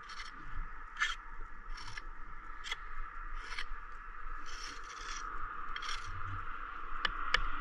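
Steel bricklaying tool scraping and rubbing over the fresh mortar of a brick wall in short irregular strokes, with two sharp clicks near the end.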